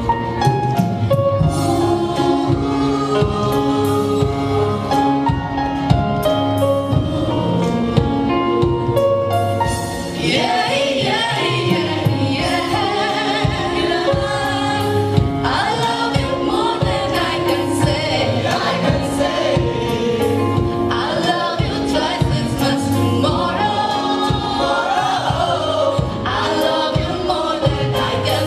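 A mixed choir singing a Bengali folk song to a band of tabla, keyboard and electric guitars. For the first ten seconds or so only the instruments and drum strokes play, then the voices come in.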